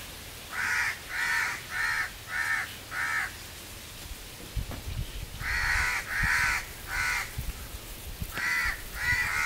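A crow cawing in runs of calls: five caws in quick succession, then three, then two near the end.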